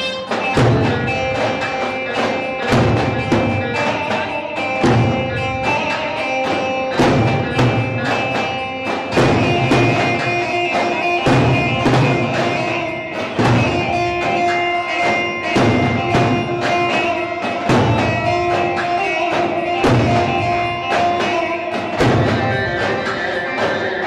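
Traditional Turkish folk dance music: a davul bass drum struck with a mallet in a steady repeating beat under a held, sustained melody.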